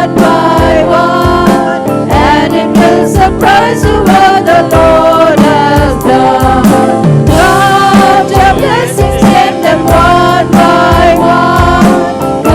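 A Christian worship song with a group of voices singing over a full band with a steady beat.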